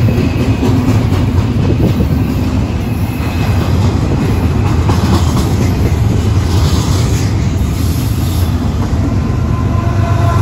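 Union Pacific double-stack intermodal freight train passing close by: loaded container cars rolling past with a loud, steady low rumble of steel wheels on the rails.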